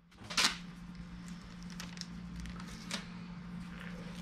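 Foil duct tape being pulled off its roll and pressed onto a galvanized sheet-metal duct: a short loud rasp about half a second in, then a low crackling drag with a few light clicks, over a steady low hum.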